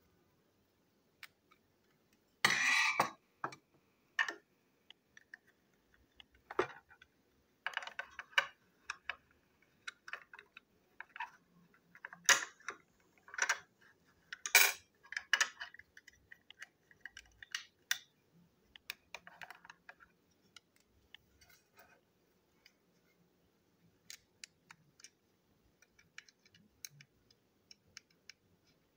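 Small plastic toy-train parts and tiny metal screws being handled on a tabletop: scattered clicks, taps and short rattles. The loudest is a brief rattle about two and a half seconds in, with a run of sharper clicks around the middle.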